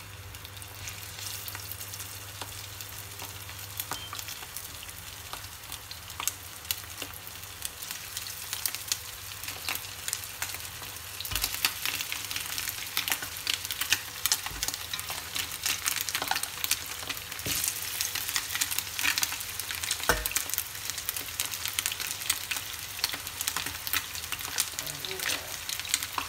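Chicken wings frying in hot oil in a frying pan over high heat, sizzling and crackling steadily. The sizzle gets clearly louder about eleven seconds in as more wings go into the pan, with a few soft knocks as they land.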